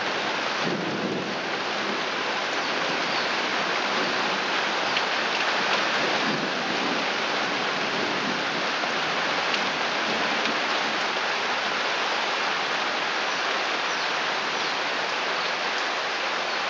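Heavy rain pouring steadily onto a wooden deck and garden plants.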